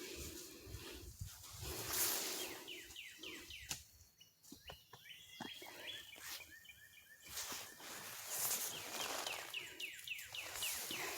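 A songbird singing, twice giving a quick run of short, down-slurred whistled notes, over rustling and shuffling noise from walking through the woods.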